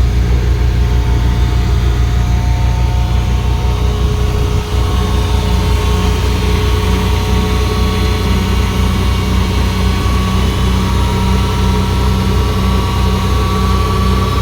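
Komatsu D31P bulldozer's diesel engine running steadily with a deep, even hum and a fainter whine above it, dipping briefly about four and a half seconds in.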